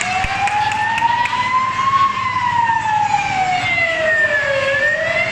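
Siren wailing: one tone rising slowly for about two seconds, falling for about two and a half, then starting to rise again near the end.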